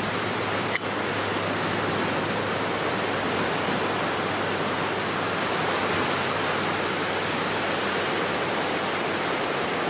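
Low surf washing onto a sandy beach as a steady rush of water, with a single brief click about a second in.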